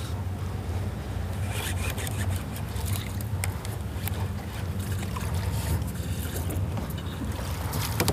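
Steady low hum of a boat's idling outboard motor, with wind noise and scattered small clicks and rattles of rod and baitcasting reel as a fish is reeled up to the boat.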